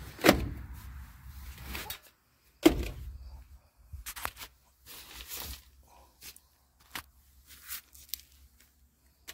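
Handling noises as papers and envelopes are picked up and shuffled: two sharp knocks, the louder about two and a half seconds in, then scattered light clicks and paper rustles.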